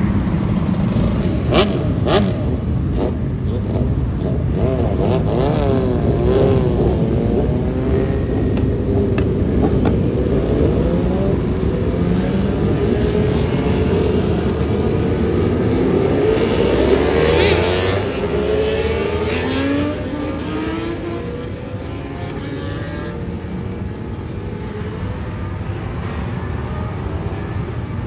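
BMW superbikes with Akrapovic exhausts revving and passing by amid highway traffic, engine notes rising and falling in pitch, with a few sharp pops about two seconds in. A loud high-revving pass comes about two-thirds of the way through, after which the sound drops to quieter traffic.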